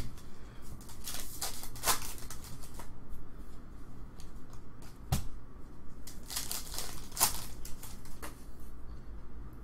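Trading-card packs and cards handled by hand: foil wrappers crinkling and tearing, cards sliding and flipping against each other in short bursts of rustle, with a single knock about five seconds in.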